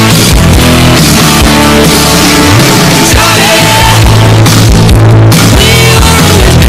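Loud, densely mixed hard rock music: a steady bass line under regular drum hits.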